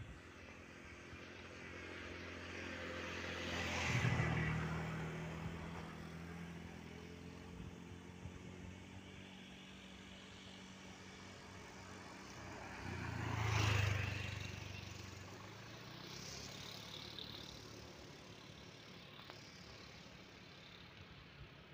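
Two road vehicles pass close by, one about four seconds in and another about fourteen seconds in. Each swells and fades with engine hum and tyre hiss.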